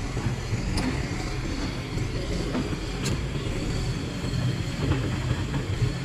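XCMG XE155DK crawler excavator's diesel engine running steadily with a low rumble, with two sharp clicks about a second in and about three seconds in.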